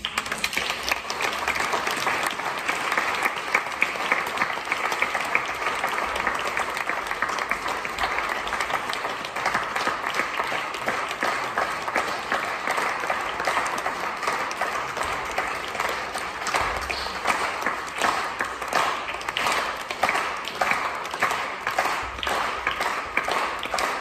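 Audience applauding, starting suddenly and thinning near the end into more scattered separate claps.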